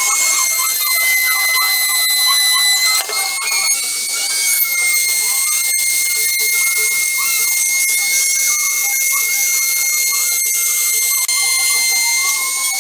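Handheld rotary tool running at high speed with a steady high-pitched whine, its bit grinding into PVC plastic with a scratchy rasp; the pitch sags slightly a few times as the bit is pressed in.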